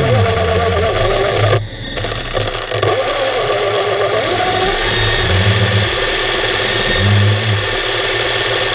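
Small electric motor of a remote-controlled underwater camera whirring in short bursts that rise and fall in pitch, over a steady underwater hiss.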